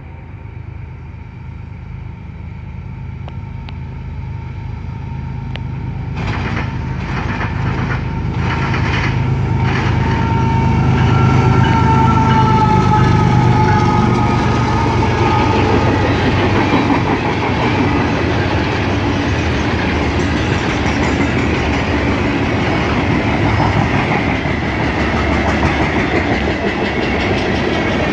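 Diesel-electric locomotives of a CSX freight train approach and pass close by, their engine rumble growing louder over the first dozen seconds, with a few sharp clicks from the wheels midway through the approach. Then steady rumble and clickety-clack of loaded tank cars rolling past.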